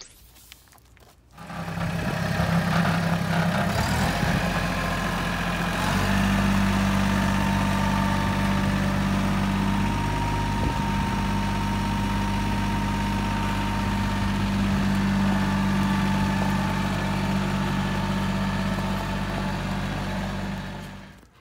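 Compact tractor engine running steadily as the tractor is driven across gravel. The engine note rises slightly and gets a little louder about six seconds in, then fades out near the end.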